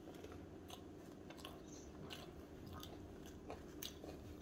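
Faint chewing of a mouthful of fried, cornflour-coated eel, with scattered short crunching clicks.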